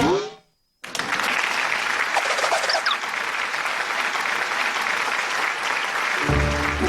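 Crowd applauding steadily for about five seconds after a brief voice sound at the very start. Near the end a short musical cue begins under the clapping.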